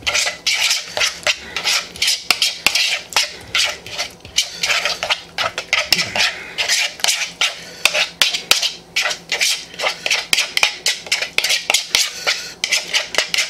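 A utensil stirring a thick mayonnaise and barbecue sauce mix with chopped onion and pepper in a plastic mixing bowl, clicking and scraping against the bowl's sides in a fast, uneven run of strokes.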